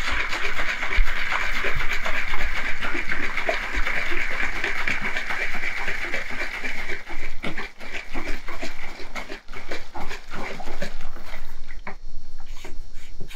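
Liquid ceramic glaze sloshing inside a plastic bottle as it is shaken to mix the settled glaze, a steady rushing slosh for the first several seconds. After that come irregular clicks and crackles of the plastic bottle being handled.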